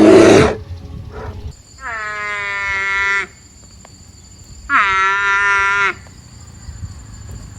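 An animal giving two long calls, each held at one steady pitch for about a second, about three seconds apart, after a short loud rush of noise right at the start.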